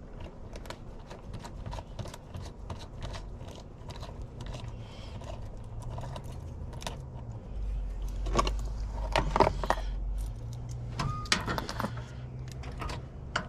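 Keys and small metal lock parts jangling and clicking in a locksmith's hands, a run of light metallic clicks. A low rumble rises for a few seconds in the middle.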